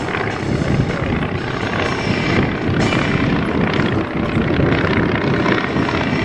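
Aircraft engine droning steadily as it flies past.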